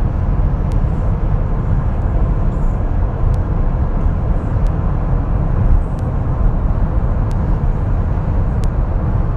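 Steady low rumble of a moving vehicle, with road and engine noise and a faint tick about every second or so.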